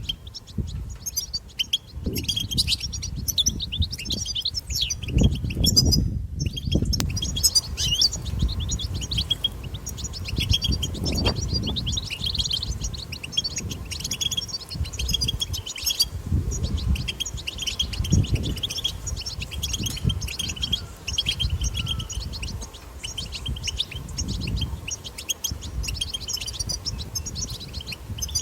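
European goldfinch twittering and chattering in a fast, continuous babble with only a brief pause, over a low rumble.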